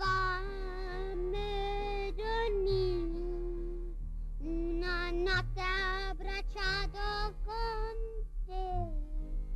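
A high, child-like cartoon voice singing held, wavering notes over orchestral accompaniment with low bass notes, breaking off briefly partway through.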